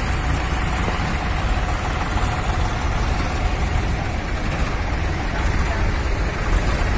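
Diesel tractor engines idling and running close by, a steady low engine noise with no breaks.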